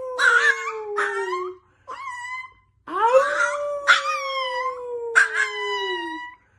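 A dog howling: a long drawn-out howl that trails off slowly in pitch ends about a second and a half in, and a second one runs from about three seconds in to near the end. Short, higher yips break in between and over the howls.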